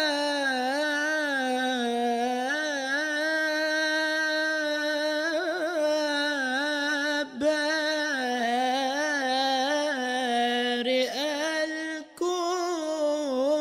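A young male munshid sings an Egyptian ibtihal (devotional supplication) in long melismatic runs on a held vowel, its pitch wavering through ornaments. A single voice carries the line with nothing else heard, and it breaks off briefly for a breath about seven seconds in and again near twelve seconds.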